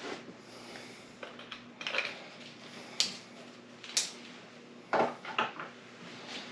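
Small hard plastic items clicking and clattering as they are handled and set down on a shelf, with sharp knocks about three, four and five seconds in.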